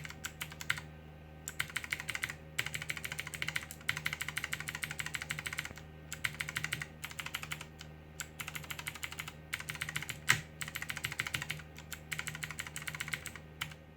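Fast typing on an Armaggeddon MKA-5R mechanical keyboard: quick runs of key clicks broken by short pauses, with one louder keystroke about ten seconds in.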